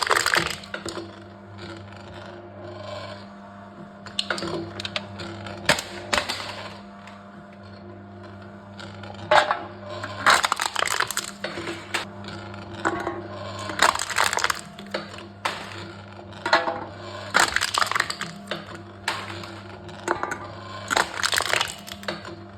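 Aluminium cans being crushed one after another by a crushing machine: a burst of crackling, crumpling metal every few seconds, about eight in all, over a steady low hum.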